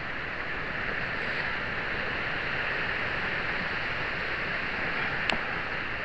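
Steady hiss of background noise, with one faint click about five seconds in as the green seal snaps into its groove in the hydraulic ram's gland.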